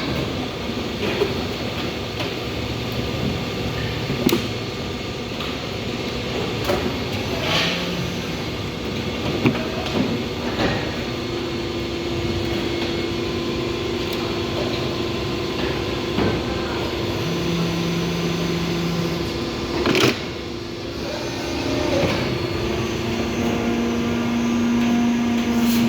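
Haitian MA530GIII/SE two-colour hydraulic injection moulding machine running a chair mould cycle: a steady machine hum with pitched whines that start and stop at different pitches as the cycle moves through its stages, and several clunks, the loudest about twenty seconds in.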